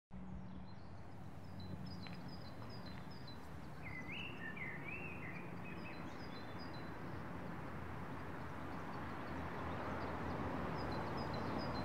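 Outdoor ambience: a steady low hum under small birds chirping, with a short warbling bird phrase about four seconds in.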